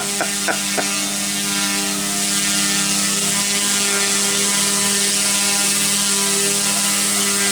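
Six-channel, direct-drive, single-rotor RC helicopter with two brushless motors running at a steady pitch in flight: an even whirring hum from the motors and rotor, with a few light ticks in the first second.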